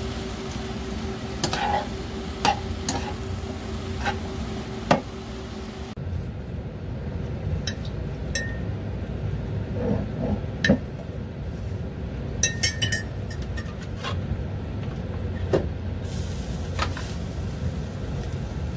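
Metal tongs and a ladle clinking against a frying pan while stir-frying, a dozen or so sharp irregular clinks, over a steady low background hum.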